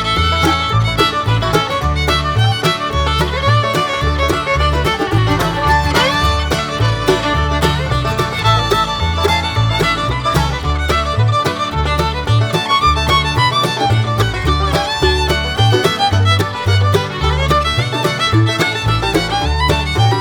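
Bluegrass-style music with fiddle over plucked strings and a steady bass beat.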